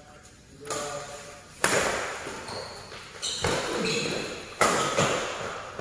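Badminton rackets striking a shuttlecock during a doubles rally: about three sharp hits, a second or more apart, each echoing in a large hall.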